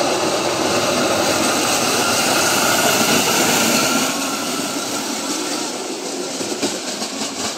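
Wheels of a goitibera, an engineless gravity cart, rolling fast down asphalt: a steady rolling rumble, loudest for the first four seconds and then quieter.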